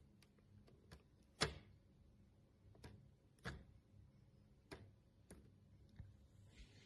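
Faint room tone broken by several sharp clicks at uneven intervals, the loudest about a second and a half in.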